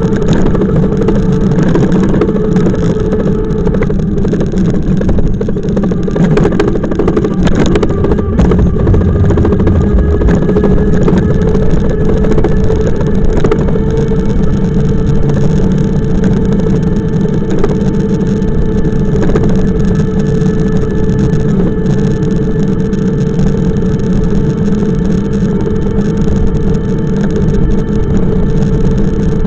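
Steady running noise of the moving bike carrying the camera: a continuous hum with low road rumble, unchanging throughout.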